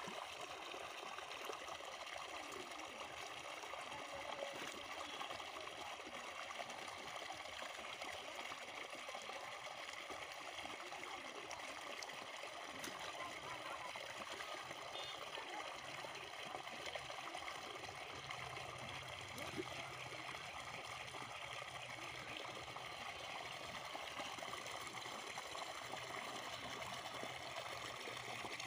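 Water running and trickling steadily through a narrow channel into a shallow flooded field.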